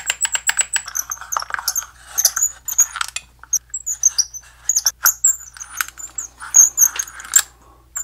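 Steel ball bearings rolling and clicking inside a handcrafted wooden puzzle box as it is tilted and turned. A fast run of clicks comes near the start, then scattered bright metallic clicks and pings with a rolling rattle between them, as a ball is lifted and drops back down inside.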